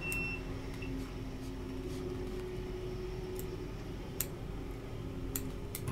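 Small fly-tying scissors snipping elk hair at the head of a fly: several faint, sharp snips spread out over a steady low hum.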